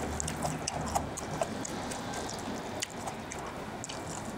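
Wet, sticky eating sounds of Chapagetti black-bean-sauce noodles: chewing and lip-smacking with many small irregular clicks. A low hum fades out about a second in.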